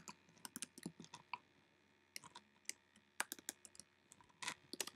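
Computer keyboard keystrokes, faint and irregular, as a line of code is typed slowly one key at a time, with a short pause in the middle.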